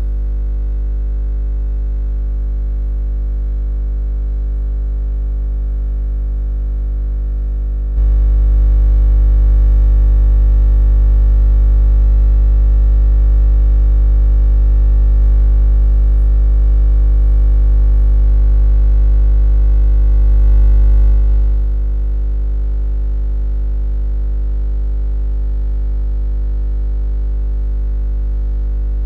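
Steady electronic drone of many held tones, strongest in the deep bass; it steps up in loudness about eight seconds in and falls back about twenty-one seconds in.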